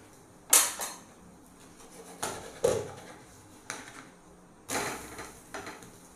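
A spatula knocking and scraping against a nonstick frying pan as a dosa is loosened and flipped: about eight short, sharp clatters at uneven intervals.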